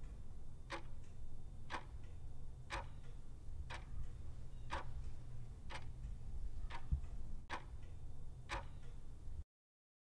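Clock-ticking sound effect, about one sharp tick a second over a low steady hum, cutting off suddenly near the end. It works as a countdown timer for answering a quiz question.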